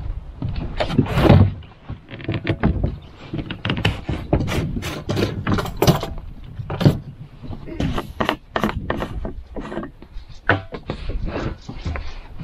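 Irregular knocks, thuds and rustling, several a second, the loudest cluster about a second in and sharp single knocks around the middle.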